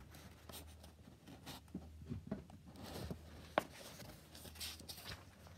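A paperback book being handled: soft paper rustles and small clicks of the pages and cover, with one sharper click about three and a half seconds in.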